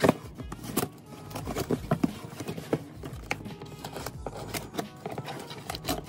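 Cardboard shipping box being handled and turned: irregular taps, knocks and light scrapes of hands on the cardboard and packing tape.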